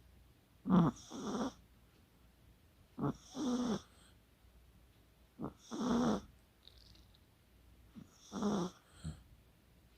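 Chihuahua snoring in its sleep: four snores, about two and a half seconds apart.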